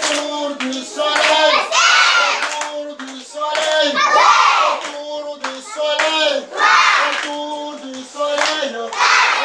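A group of children singing a song together in a stepping melody, with hands clapping along.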